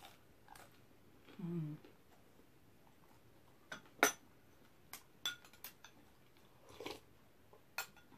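Metal spoon clinking against a glass soup bowl: scattered light taps and clicks, the sharpest a little past the middle. A short hummed voice sounds about one and a half seconds in.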